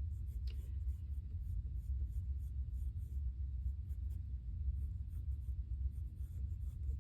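Pencil scratching on sketchbook paper in short strokes while fingers are drawn in, over a steady low rumble.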